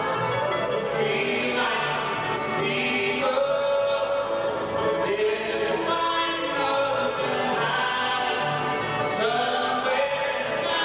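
Bluegrass band playing live, with upright bass, mandolin, acoustic guitar, five-string banjo and fiddle under several voices singing together in harmony.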